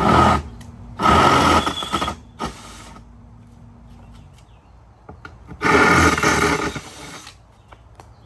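Cordless drill running in three bursts: a short one at the start, a second-long one about a second in, and a longer one about six seconds in.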